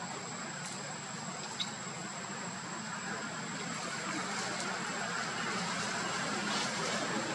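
Steady outdoor background noise, an even hiss with a low rumble, under a thin continuous high-pitched whine; a faint click about one and a half seconds in, and the hiss grows a little louder after about three seconds.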